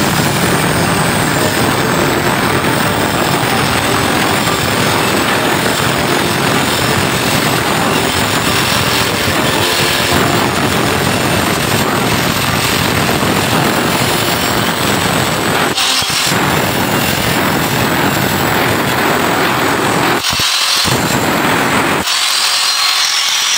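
A power tool running steadily under load, its low end dropping away briefly a couple of times near the end.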